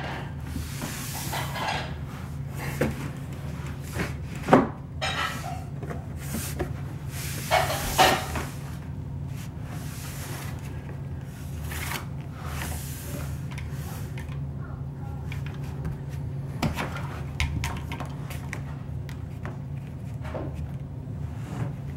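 Wooden chair-rail moulding being pressed and shifted against beadboard panelling by hand: scraping and rubbing of wood on wood, with a few sharp knocks, the loudest about 4.5 and 8 seconds in. A steady low hum runs underneath.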